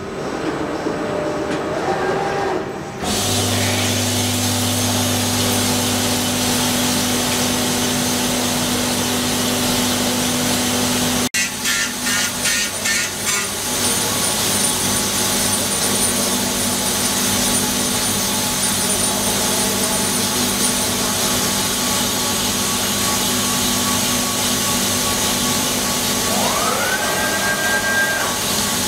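Hauser S50L-CNC jig grinder grinding a bore in a steel workpiece: a steady, loud hiss with a thin high whine above it and a low hum in the first part. Near the end a tone rises and then holds steady.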